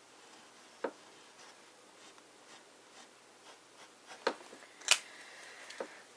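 Fountain pen's hard medium nib scratching over paper in short writing strokes, with a few sharp clicks, the loudest about five seconds in.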